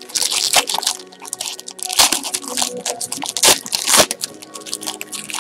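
Foil trading-card pack wrapper being torn open and crinkled in the hands: an irregular crackle with sharp loud cracks about 2, 3.5 and 4 seconds in. Faint background music underneath.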